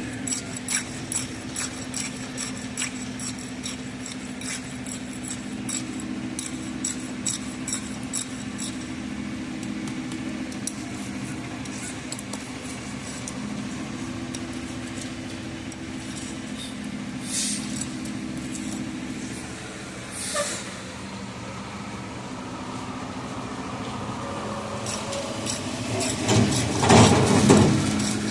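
A heavy engine, likely a truck's diesel, runs steadily at a low hum. For the first several seconds there are light repeated clicks and taps, and a louder swell of mechanical noise about two seconds long comes near the end.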